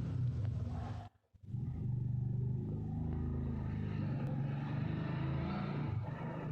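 A pet parrot making a strange low, steady-pitched buzzing noise, broken once about a second in. Its owner does not know the cause and fears something is wrong with the bird.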